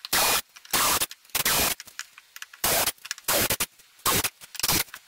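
Cordless drill boring small pilot holes through a UHMW plastic sheet, in about ten short bursts that start and stop abruptly.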